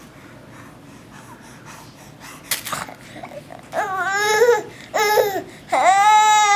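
A single cough, then three pitched, wavering vocal calls with a ringing, sung quality: a longer one, a short one, and a final one that is the longest and is held to the end.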